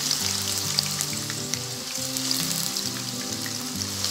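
White tofu cubes frying in hot oil in a wok: a steady sizzle with small crackles, over soft background music.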